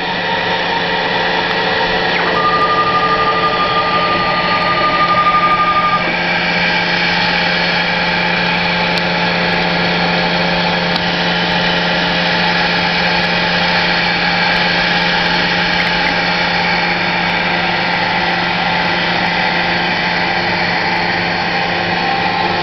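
CNC machine running while machining a plastic part: a steady mechanical whine made of several held tones over a low hum. A higher tone joins about two seconds in and stops about six seconds in.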